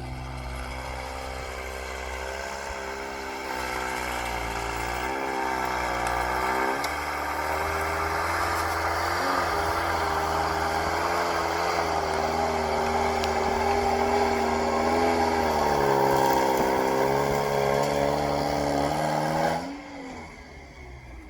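Engine of a six-wheeled 'Veter' 6x6 all-terrain vehicle running under way, its pitch rising and falling repeatedly with the throttle. It cuts off suddenly near the end.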